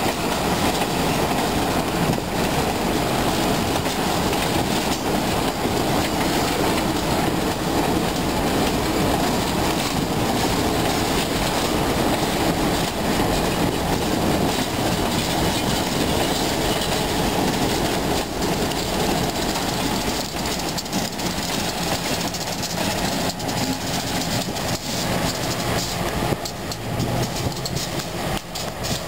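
Passenger train coaches rolling steadily past over a grade crossing, their wheels clacking on the rail joints. In the last few seconds a diesel locomotive's engine joins in as it reaches the crossing.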